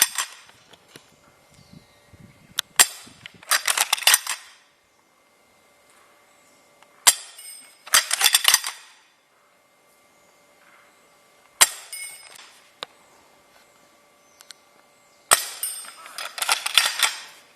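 K.T.W. Type 38 Arisaka spring-powered airsoft rifle fired four times, about four seconds apart, each a sharp snap. Between the shots comes a clatter of about a second as the bolt is worked to cock the spring for the next shot.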